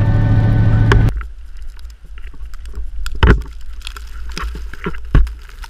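Background music that cuts off about a second in. Then blizzard wind rumbling on the microphone, with scattered knocks and thumps, two of them much louder, about three and five seconds in.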